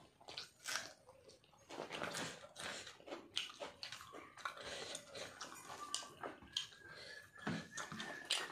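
A man eating rice and chicken curry by hand close to the microphone: irregular wet chewing and mouth smacks, with his fingers squishing and mixing rice on the plate.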